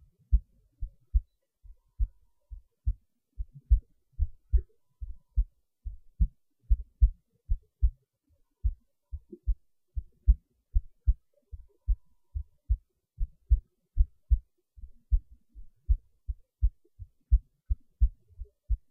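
Heartbeat: a steady, even rhythm of short, low, dull thumps, the lub-dub of a heart beating at a regular pace.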